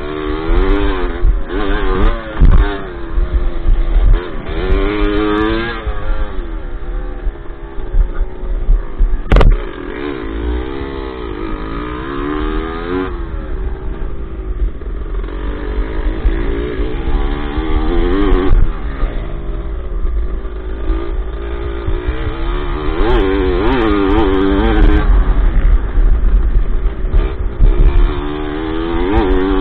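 Onboard sound of a dirt bike engine being ridden hard, its pitch repeatedly rising and falling as the throttle is opened and closed around the track. There is a constant low rumble on the microphone and one sharp knock about nine seconds in.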